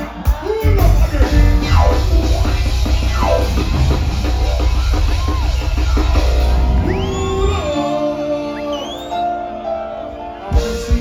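Live reggae band playing an instrumental passage with heavy bass and drums. The bass and drums drop out about seven and a half seconds in, leaving the higher instrumental lines with a few sliding notes.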